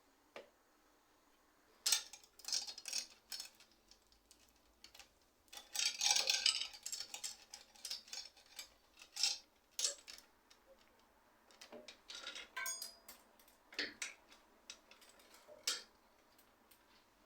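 Irregular metallic clicks, taps and clinks of hand tools and bicycle parts being worked on, with a dense run of clatter about six seconds in and a few brief ringing metal notes later.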